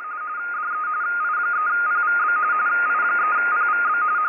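Electronic data-signal tones: a single tone hopping rapidly back and forth between two close pitches over a hiss, like a radio teletype or modem signal. It swells in over the first second, then holds steady.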